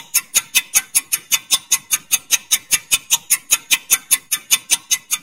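Quiz timer ticking sound effect: fast, even clicks, about five a second.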